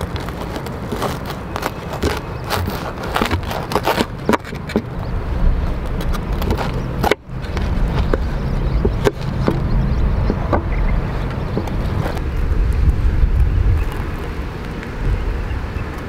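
Kitchen knife sawing through the crisp toasted crust of a hot sandwich, with a rapid run of crunchy crackles in the first few seconds and a few single crunches later. A steady low rumble runs underneath.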